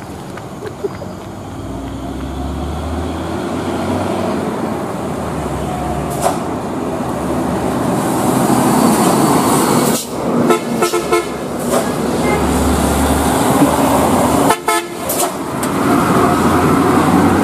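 Heavy diesel trucks passing close by, their engine noise building. Several short horn toots sound about ten seconds in, with more a few seconds later.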